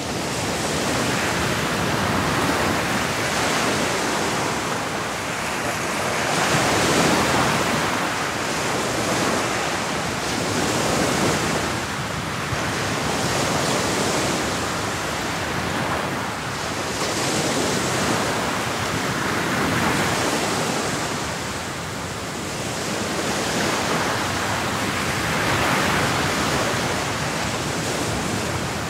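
Ocean surf breaking below rocks: a steady rush of white water that swells and eases every few seconds.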